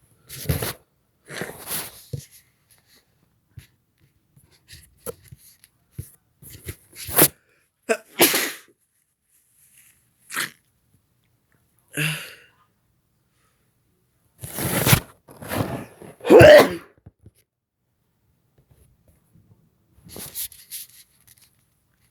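A person sneezing again and again, a run of sharp sneezes a second or few apart, the loudest about three-quarters of the way through. The sneezing fit is set off by snorting chhinkni, a herbal sneezing powder.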